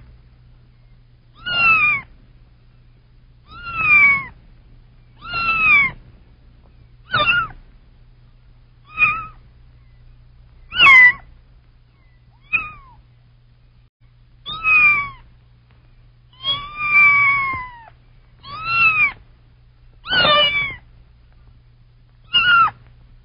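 Kitten meowing repeatedly: about a dozen high, mostly falling meows, one every second or two, one near the end of the second quarter held longer than the rest. A faint steady low hum lies underneath.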